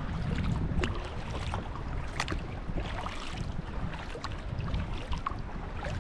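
Kayak paddling: the paddle splashing and dripping in the water in irregular small splashes, over a steady low rumble of wind on the microphone.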